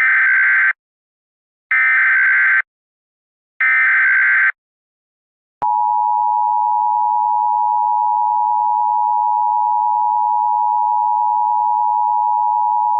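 Emergency Alert System SAME header: three short buzzy data bursts, about two seconds apart. About five and a half seconds in, the EAS two-tone attention signal (853 and 960 Hz together) starts and holds steady.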